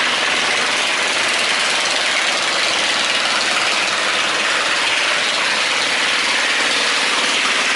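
Motor boat engine running steadily, mixed with a dense rushing noise.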